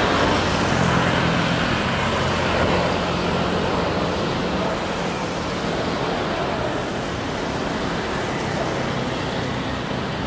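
Boeing 777-300ER's GE90 jet engines and rushing rollout noise as the airliner decelerates down the runway just after touchdown, a steady low drone under a broad rush that eases off over the first several seconds as it slows.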